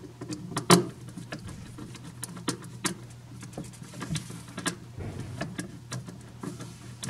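Small clicks and rustles of an insulated wire being handled and fitted into a plastic DIN-rail terminal block inside a plastic enclosure, with one sharper click about three-quarters of a second in. A steady low hum runs underneath.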